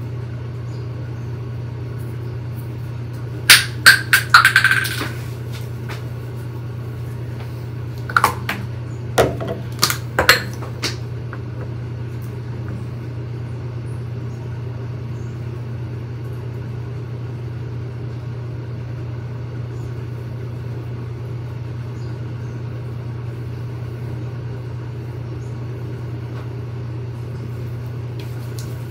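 Skincare bottles and containers clicking and knocking against a bathroom countertop as they are picked up and set down. A quick cluster of sharp knocks comes about three and a half seconds in and is the loudest sound. A few softer knocks follow several seconds later, over a steady low hum.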